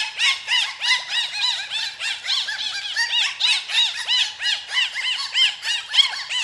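A brood of baby poultry peeping all together: many short, high, rising-and-falling peeps overlapping continuously, several a second.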